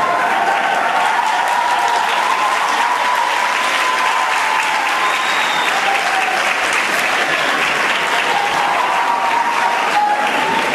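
Large audience applauding steadily in a concert hall, welcoming the band and its conductor onto the stage.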